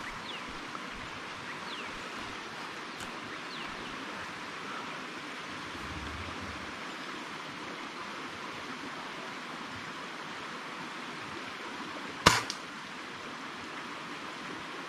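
A single air rifle shot about twelve seconds in: one sharp crack with a brief tail, over a steady background hiss.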